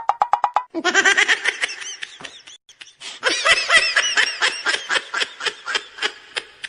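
Laughter: a long run of rapid, high-pitched laughing, opening with a quick run of clicks in the first moment.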